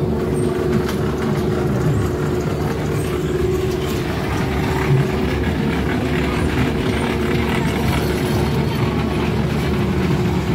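Children's fairground train ride running round its track: a steady mechanical hum with the running noise of the cars and wheels.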